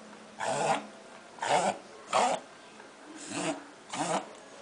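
Dachshund coughing in a fit: five short hacking coughs, one after another, with brief pauses between them.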